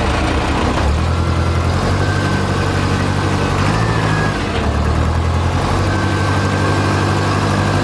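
Replacement engine of a Case 580CK backhoe running just after an engine swap, with a steady low engine note that picks up about a second in and briefly drops and recovers around four seconds in.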